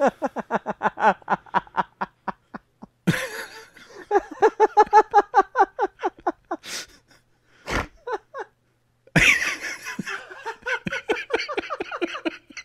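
Men laughing hard in a long fit: three bouts of rapid, repeated pulses of laughter, broken by short pauses for breath, with a brief sharp knock in the longer pause.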